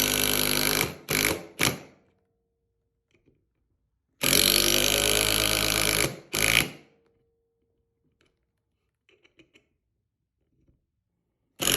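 Impact driver with a Wiha Phillips #2 impact bit driving 2-inch galvanized deck screws: a run of about two seconds ends in a couple of short bursts as the screw seats. About four seconds in, a second screw goes in the same way, and a third starts near the end.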